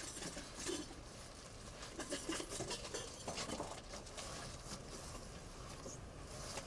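Faint rustling and scattered light clicks of cardboard and small objects being handled as someone rummages.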